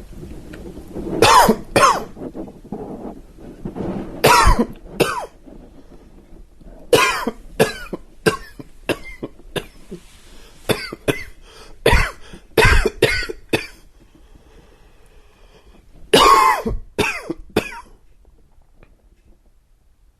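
A man's dry, wheezy cough, coming in fits: a pair of coughs, another pair, then a long run of a dozen or so rapid coughs, and a final burst of three. The coughing stops about two seconds before the end.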